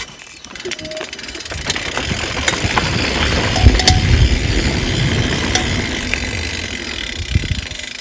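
Mountain bike rolling over a rough trail: a low rumble of tyres on the ground builds up after about a second and a half, with scattered clicks and rattles.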